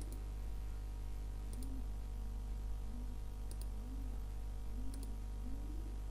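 Computer mouse clicks, a few single clicks spaced a second or two apart, over a steady low electrical hum.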